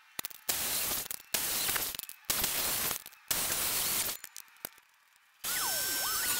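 Black & Decker circular saw cutting through a pine board, in several short bursts of about a second each. About five and a half seconds in, a table saw starts running with a steady high whine.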